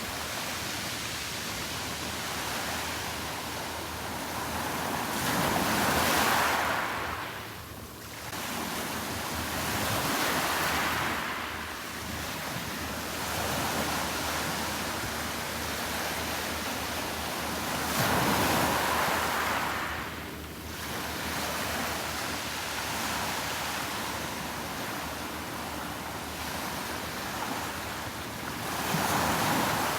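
Sea waves breaking on the shore, the surf swelling to a louder crash about every eight to ten seconds and easing off between.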